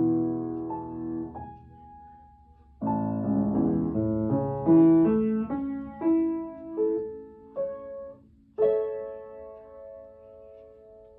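Background piano music: ringing chords, then a run of single notes, ending on a held chord that fades away.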